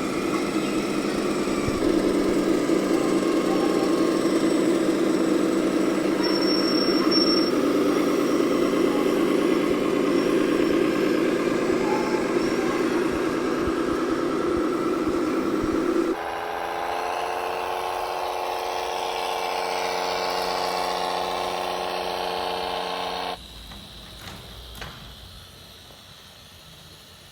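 Diesel engine sound from the sound modules of radio-controlled model tractors and trucks, running steadily. It changes abruptly to a different engine note about 16 s in, then drops suddenly to a much quieter sound about 23 s in.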